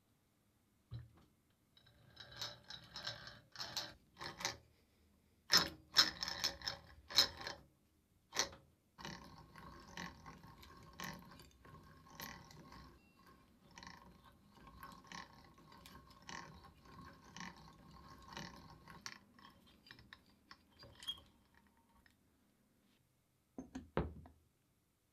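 Restored two-speed chain-driven hand drill being cranked: its gears and chain give a clicking, rattling whir that pulses roughly once a second, with several sharp clacks early on. A single knock comes near the end.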